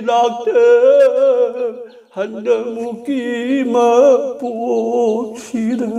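An elderly man singing a slow devotional chant unaccompanied, with long wavering held notes, in two phrases with a breath about two seconds in.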